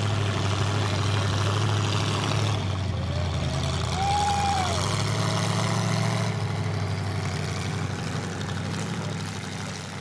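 Mud trucks' engines running steadily with a low engine note under a broad background haze, with a short rising-and-falling tone about four seconds in. The sound fades near the end.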